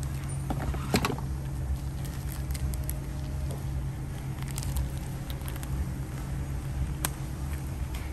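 A plastic parts bag rustling and crinkling in nitrile-gloved hands as the new filter's o-ring is taken out, with scattered light clicks and a sharper knock about a second in. A steady low hum lies underneath.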